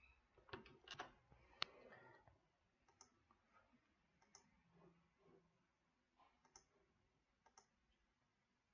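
Faint computer mouse clicks, single clicks spaced a second or more apart, over near-silent room tone.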